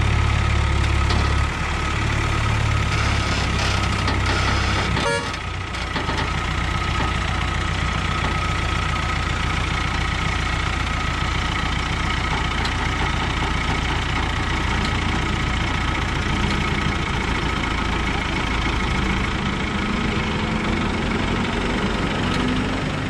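Heavy diesel engine of a pick-and-carry crane running steadily, with a steady high whine over it; the deep engine note drops slightly about a second and a half in.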